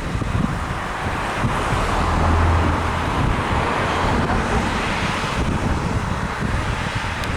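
New Holland CR8.90 combine harvester working in a wheat field: a steady diesel engine and machinery rumble that swells louder in the middle, with wind buffeting the microphone.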